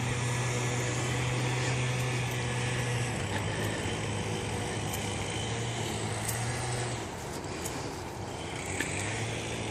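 A steady low engine hum over outdoor background noise, which softens for a couple of seconds near the end.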